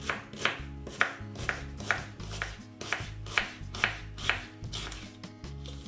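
Kitchen knife slicing an onion into half-rings on a wooden cutting board: a steady run of short cuts, about two to three a second, each a crisp knock on the board. Soft background music underneath.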